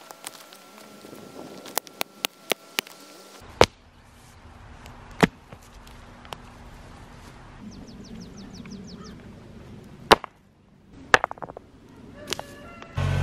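A hand hoe chopping into root-bound, rocky dirt. It makes a series of sharp strikes: a quick run of light chops a couple of seconds in, then single heavier blows, the loudest about ten seconds in.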